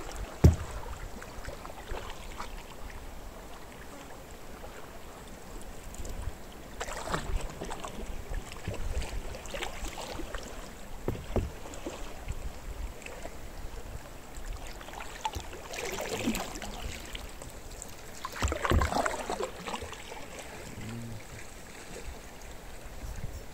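Canoe paddles dipping and splashing in the water at irregular intervals, with a sharp knock about half a second in.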